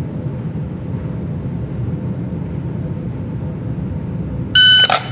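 Electronic shot timer giving its start beep near the end: one loud, high-pitched electronic tone lasting under half a second, the signal to draw. A steady low rumble runs underneath.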